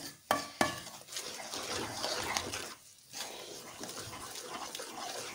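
A wooden spoon stirring a thick paste of besan roasted in ghee in an aluminium pot, scraping and swishing steadily, with two or three sharp knocks of the spoon against the pot in the first second.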